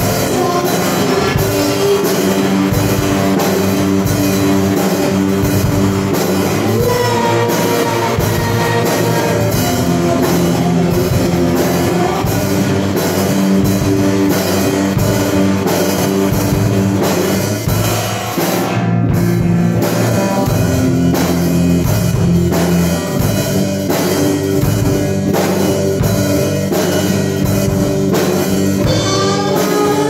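Rock band music: a drum kit keeping a steady beat under guitar and sustained pitched parts, with the top end dropping out for a moment about two-thirds of the way through.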